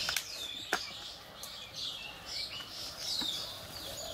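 Small birds chirping over and over in short, high, curved calls, with a few sharp clicks in between, the clearest one just under a second in.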